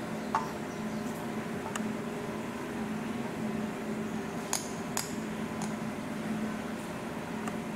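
Steady low machine hum, with a few sharp clicks on top; two of the clicks come close together about halfway through.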